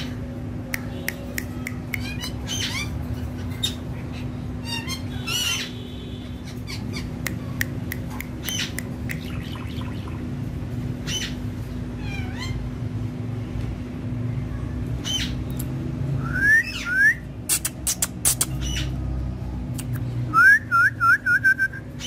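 Green ringneck parakeet squawking. About three-quarters of the way in come two loud rising calls, and near the end a quick run of five short rising calls, among fainter scattered chirps over a steady low hum.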